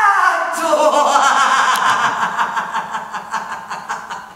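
A voice slides down in pitch, then breaks into a long, rapid chuckling laugh that gradually fades away.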